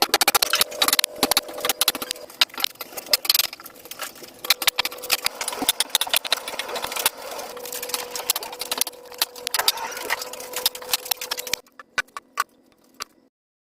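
A small machine running with a steady hum under dense, rapid clattering; it stops abruptly near the end, leaving a few separate clicks.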